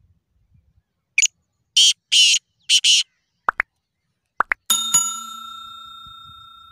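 Black francolin calling: four harsh, grating notes in quick succession, then a few short rising whistles. About three-quarters of the way through, a single struck bell-like metallic ring fades out slowly.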